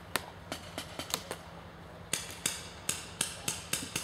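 Paintball markers firing: a string of sharp pops at an irregular pace, coming quicker after about two seconds.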